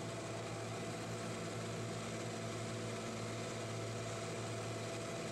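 Concrete paving machine running: a steady low engine drone with a constant hiss, unchanging throughout.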